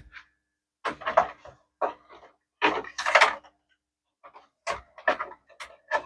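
A run of irregular short knocks and clatters, about eight, each lasting well under half a second, like small hard objects being handled and set down.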